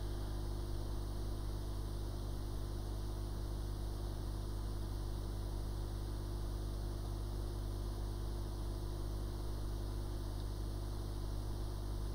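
Hot air rework station blowing steadily over a constant electrical hum, heating a touch IC on a phone logic board to desolder it.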